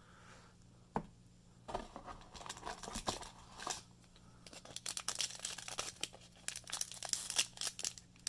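Foil wrapper of a Magic: The Gathering booster pack being torn open and crinkled: a single click about a second in, then a run of rips and crackles that gets busier toward the end.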